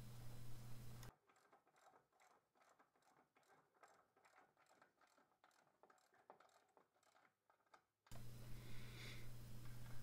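Very faint, even clicking of a 3/8-inch ratchet with a 21 mm socket tightening brake caliper bracket bolts, several clicks a second, the track otherwise almost silent. A low steady hum is heard in the first second and again near the end.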